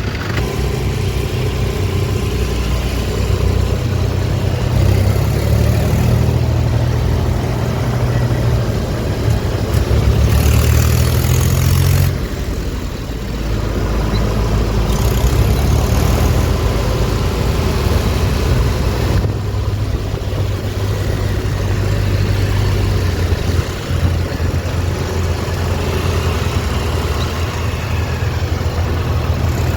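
Heavy diesel machinery engines running steadily, their revs rising and falling. About ten seconds in the sound turns harsher and louder, then cuts back sharply about two seconds later.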